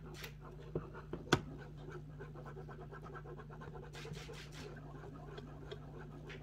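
Wire whisk scraping around a nonstick saucepan of thick sauce: a quick, steady scratching rhythm, with a sharper tap of the whisk against the pot just over a second in.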